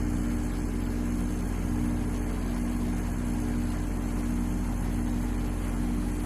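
Hermetic refrigerant compressor running steadily on its starting and run capacitors, a constant low electric hum with a few steady tones above it. The workers doubt whether it is actually pumping, since they find no heat and no air coming out.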